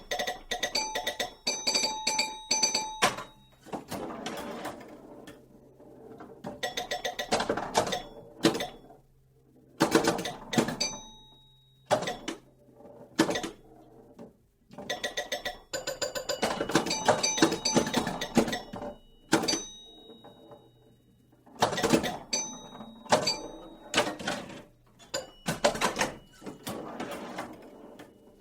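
Pinball machine in play: rapid flipper clacks and ball knocks mixed with short ringing bell tones. They come in bursts of one to a few seconds, separated by brief lulls.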